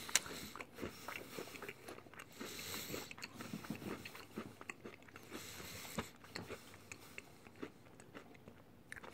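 Chocolate cookie bar being bitten and chewed: a run of small, quiet crunches that thin out near the end.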